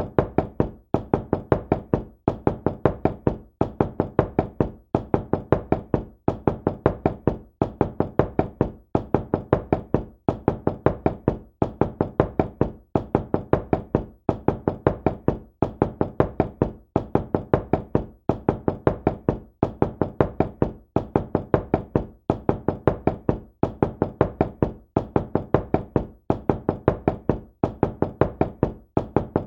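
Knocking on a door: quick runs of several raps, repeated over and over with a short pause between each run.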